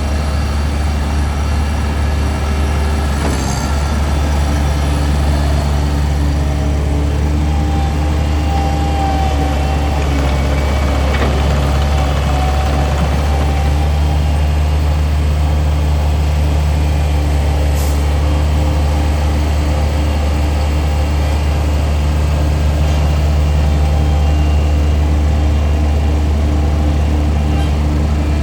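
Bobcat MT55 mini track loader's diesel engine running steadily at a low, even pitch, with a faint higher whine for a few seconds about a third of the way in.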